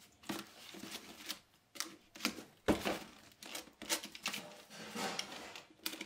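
Utility knife slicing through plastic packing tape and cardboard on a parcel: short, irregular scratching and scraping strokes, the sharpest a little under three seconds in.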